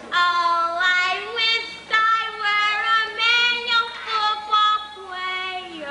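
A single high voice singing unaccompanied, a melody of held notes that slide between pitches.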